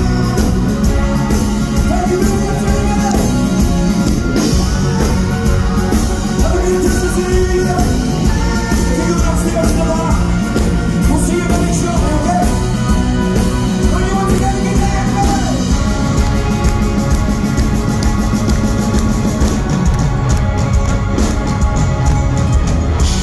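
Live rock band playing an upbeat Christmas rock-and-roll song, electric guitars, bass, drums and saxophones with a singer over them, loud as heard from the crowd.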